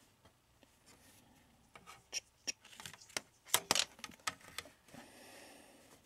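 Small irregular clicks and taps of metal multimeter probe tips being set on the pins of solenoid drive transistors on a pinball circuit board, as the leads are reversed for an in-circuit diode check. The clicks come thickest in the middle, and a faint hiss follows near the end.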